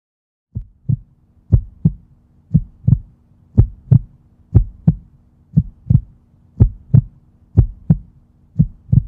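Heartbeat sound effect: paired low thumps in a lub-dub rhythm, about one beat a second, starting about half a second in over a faint steady hum.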